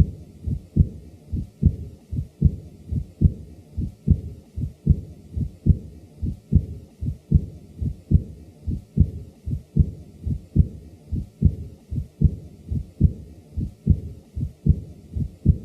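Heartbeat with an early diastolic murmur from a man with mild aortic regurgitation: a steady, even rhythm of about five beats every four seconds, with a soft murmur following the second heart sound of each beat.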